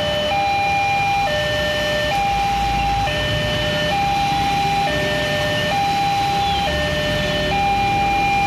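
Railway level-crossing warning alarm sounding a two-tone high-low signal, switching pitch a little under once a second. It is the sign that the barrier is down and a train is approaching. Rain hiss and idling and passing motorbike and car engines sit underneath.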